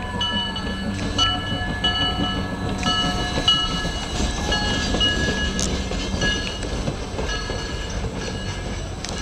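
Small steam locomotive and its train passing close by: a steady low rumble, with a high ringing tone that repeats about every half second.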